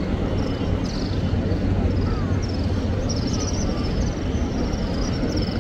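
Crowd noise of pilgrims walking around the Kaaba: a steady low rumble of many people moving and murmuring, with short high chirps repeating over it.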